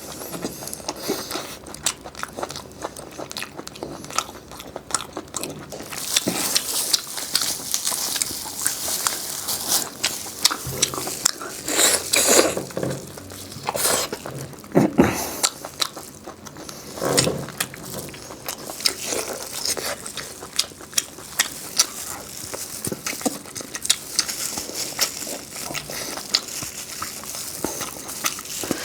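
Close-miked eating: a person biting into and chewing crisp food, with a dense run of crunches and sharp clicks.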